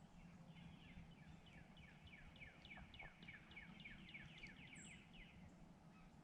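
A songbird singing faintly: a run of quick down-slurred notes, about four or five a second, lasting nearly five seconds, over a steady low hum.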